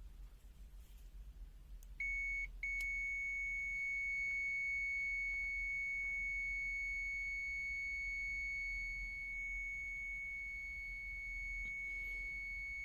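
Aneng AN-V03B multimeter's continuity buzzer sounding a steady high-pitched beep, the sign of a closed circuit below its roughly 50-ohm threshold. It starts about two seconds in, breaks off briefly, then holds on continuously.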